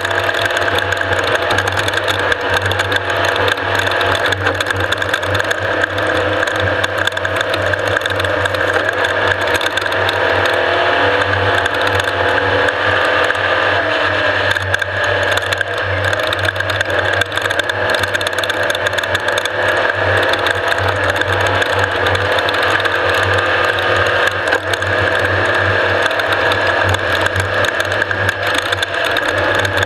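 Off-road race vehicle running steadily at speed, its engine drone under constant rapid rattling and clatter from the vehicle over rough ground.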